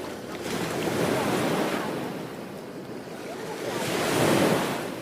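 Ocean waves breaking and washing on a beach: the surf swells about a second in, eases off, then a louder wave surges and breaks near the end.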